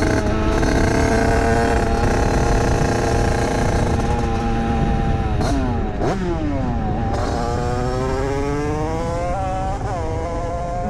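Rieju MRT Pro's two-stroke engine, built up with an 86 cc Top Performance aluminium cylinder kit, 24 mm PWK-type carburettor and Voca 80/90 exhaust, running at high revs under way. About halfway the revs drop sharply twice and fall away, then climb steadily for about three seconds, with another quick dip near the end.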